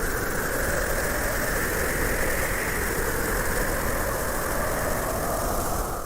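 A motor or engine running steadily at an even speed, without rising or falling.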